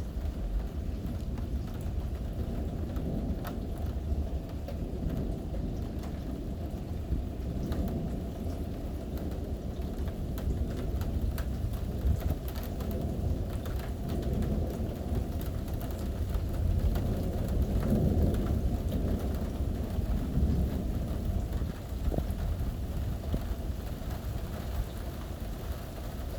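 Thunderstorm: steady rain with low rolling thunder that swells several times, and scattered raindrops ticking close by.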